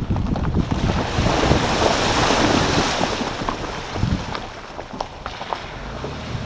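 Water splashing and hissing around an off-road vehicle's tyres as it drives into a shallow water crossing, with wind on the microphone. The splash is loudest in the first half and eases off after about four seconds as the vehicle wades on more slowly.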